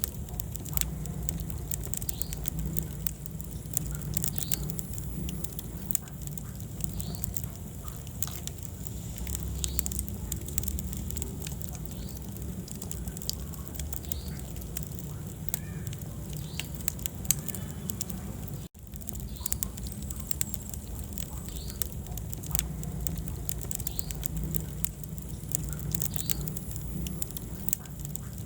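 Wood fire burning in a fireplace, crackling with many sharp pops and snaps over a low, steady rumble of the flames. The sound drops out for an instant about two thirds of the way through.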